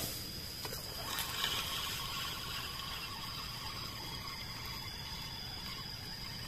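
Steady background hiss with a constant thin high-pitched tone, and a knock at the start plus a few faint clicks and rustles about a second in as the camera is handled.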